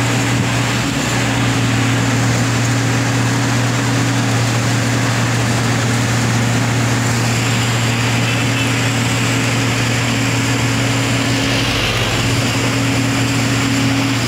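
Wirtgen W 1000 F cold milling machine running under load, a steady drone with a constant low hum beneath a broad noisy rush. Its conveyor is discharging milled asphalt into a dump truck.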